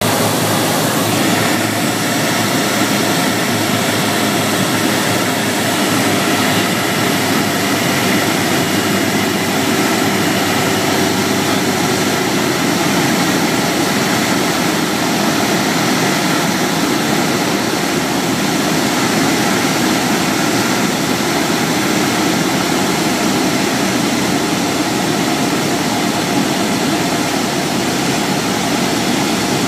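Steady drone of a light propeller airplane's engine and rushing air, heard from inside the cabin during a landing.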